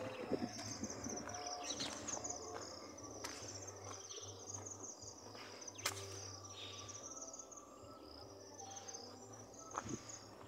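Insects chirping in the grass: a high, rapid trill that repeats in runs of a second or so, with a few faint clicks.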